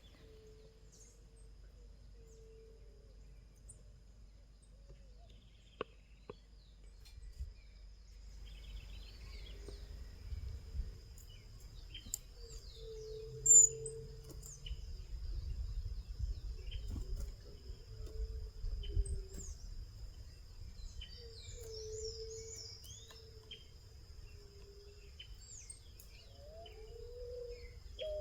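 Wild birds giving short, high chirps and calls, over a low cooing phrase repeated several times, with a steady low rumble of background noise. A single sharp click stands out about halfway through.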